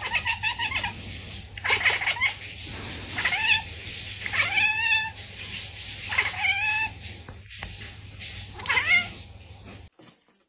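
A cat meowing six times, one call every second or two; the longest call, about halfway through, wavers in pitch. A low steady hum runs underneath.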